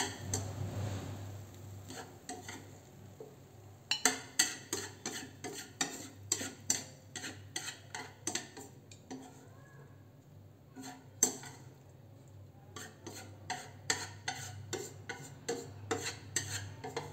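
A utensil scraping and knocking against a non-stick frying pan and a ceramic plate while stir-fried beef and celery is scooped out: a run of sharp clicks and scrapes, few in the first four seconds, then coming quickly one after another.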